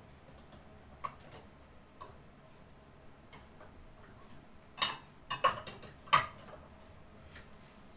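A few scattered sharp clicks and taps, with a quick cluster of louder ones about five to six seconds in.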